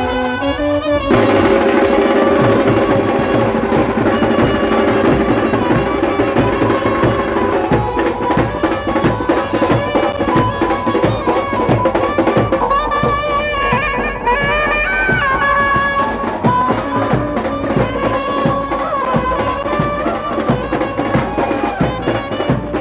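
Indian uniformed street brass band playing: snare and bass drums beat a steady rhythm under a saxophone and trumpet melody.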